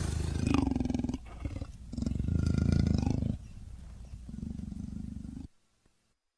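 Dromaeosaurus creature sound effect: a run of deep, rough growling roars, the loudest about two seconds in, then a quieter growl that cuts off suddenly into silence.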